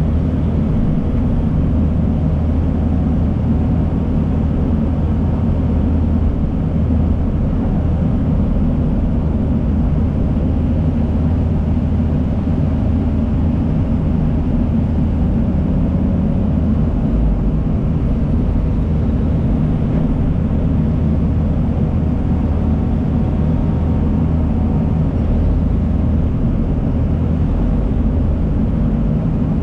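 Diesel engines of heavy earthmoving machinery, a crawler dozer and an excavator, running steadily with a low, even drone.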